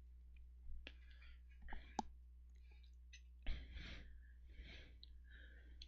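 Quiet room tone over a steady low electrical hum, with a few sharp clicks and soft breaths close to the microphone, the loudest about three and a half seconds in.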